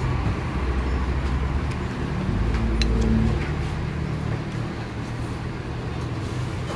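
Steady low rumble of passing road traffic, with one sharp click about three seconds in.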